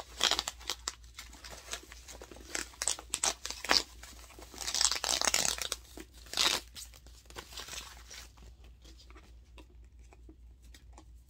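Paper wrapping rustling and crinkling in quick bursts as hands pull it away to unwrap a handbag's strap; it dies down about seven seconds in.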